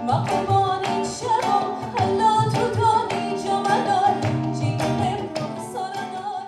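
A woman singing a melody with sliding, ornamented notes over plucked acoustic guitar accompaniment, fading slightly near the end.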